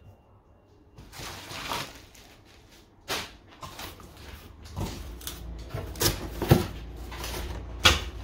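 Packaging and parts being handled: rustling with several sharp clicks and knocks.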